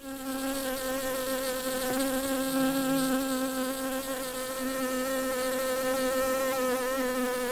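Bee buzzing: a steady hum with a slight waver in pitch.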